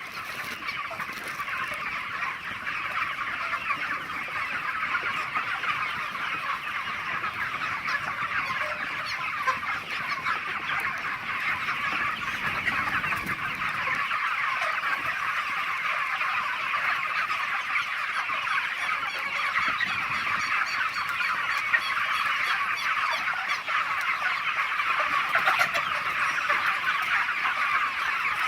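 A large flock of chickens clucking and chirping all at once in a dense, continuous din that slowly grows louder.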